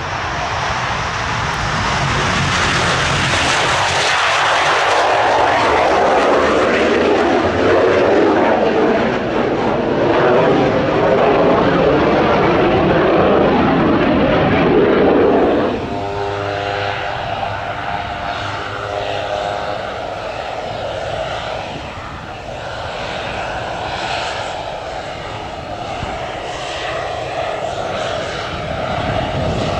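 Hawker Hunter's Rolls-Royce Avon turbojet running at take-off power, loud as it passes, its pitch sweeping downward. About sixteen seconds in the sound changes abruptly to a Pilatus PC-12's single turboprop running at taxi power, quieter and steady with a whine.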